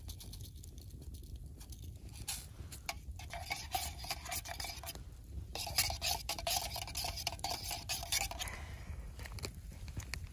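A utensil stirring coffee in a metal camp pot, scraping and clinking against the pot's sides in two spells with a short pause between them.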